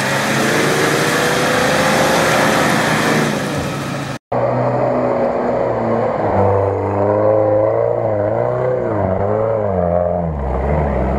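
Off-road 4x4 engines working hard in deep mud. First a Nissan Patrol's engine revs rising steadily. After a sudden brief cut about four seconds in, a UAZ-469's engine revs up and down over and over as its wheels churn through the mud.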